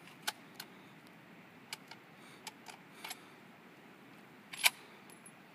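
A rifle being handled after firing: a scattered run of sharp clicks and knocks, about seven in five seconds, the loudest a little past four and a half seconds in.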